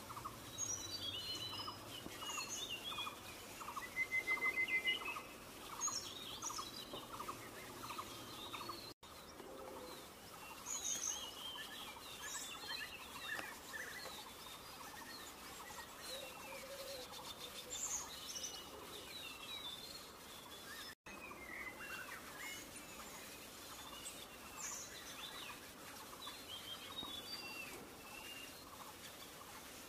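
Several small songbirds chirping and calling, with a short loud trill about four seconds in. A rapid lower pulsing call, about two or three pulses a second, runs through the first third. The sound drops out abruptly twice, at edits.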